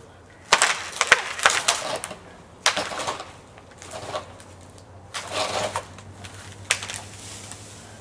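A conifer limb being pulled down with a rope: irregular loud bursts of sharp cracking and breaking as the limb tears loose and crashes down through the branches.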